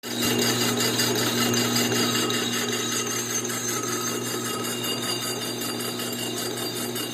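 Lathe running: a steady motor hum with a few constant higher whining tones and a fine, fast rattle over it.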